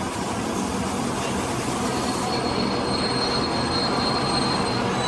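A diesel multiple unit running into a station platform, its engine and wheels making a loud steady rumble. From about two seconds in a thin high squeal of wheels or brakes joins it as the train slows to stop.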